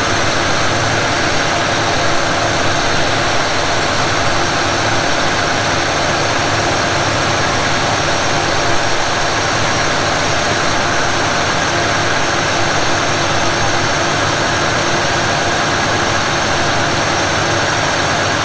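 Ford 302 small-block V8 idling steadily, choke opened so the idle is down for a timing check.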